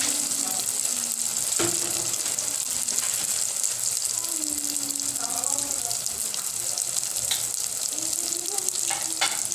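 Lumpia shanghai (spring rolls) deep-frying in hot oil in a pot, a steady crackling sizzle with a few sharp pops. The rolls have just gone into the oil.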